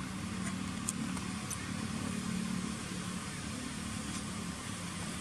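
Steady low hum of a motor engine running, with a few faint clicks.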